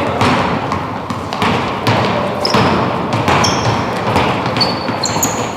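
Basketball game on an indoor court: a ball bouncing and thudding on the floor at irregular intervals, with short high sneaker squeaks from about halfway in, over a general hubbub of players.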